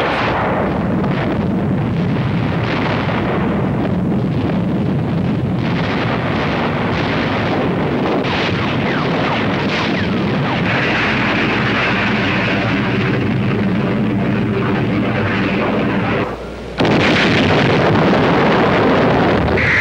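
Sound effects of a bombardment: dense, continuous artillery fire and explosions, with separate shots standing out in the first ten seconds. After a short dip about 16 seconds in, a slightly louder unbroken blast rumble carries on.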